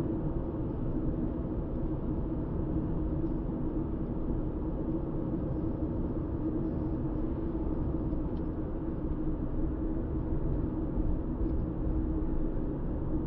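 Steady drone of a car travelling at road speed, its engine and tyre noise running evenly with no change in pace.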